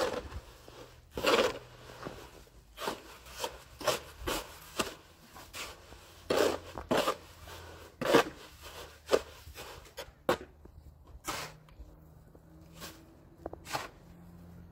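A series of short scraping strokes at an irregular pace, roughly one a second, some louder than others.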